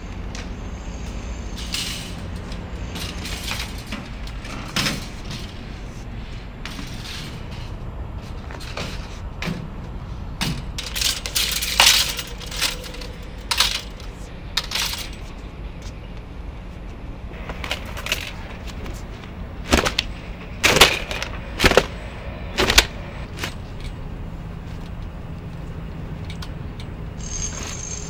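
Stainless-steel folding clothes-drying rack clacking and clinking as it is opened out and laundry is hung on its metal rails. Irregular sharp metallic clicks and knocks, with the loudest cluster a little after the middle, over a steady low hum.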